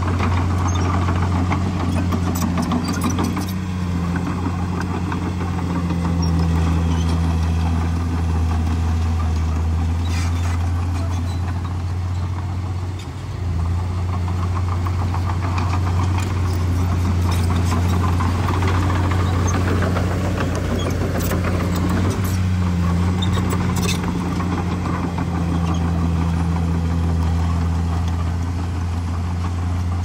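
Diesel engine of a Komatsu D51PX crawler bulldozer running steadily with a low drone, easing off briefly about halfway through, with scattered short clanks.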